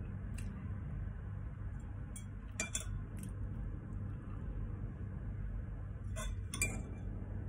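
Metal fork and spoon clinking and scraping against a ceramic bowl while eating, in a few scattered clinks: one soon after the start, a cluster of several around two and a half to three seconds in, and two more near the end.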